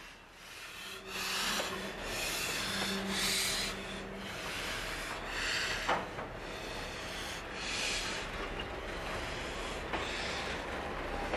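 C38-class steam locomotive moving slowly past at close range: uneven bursts of hissing steam exhaust, with a few sharp metallic clanks.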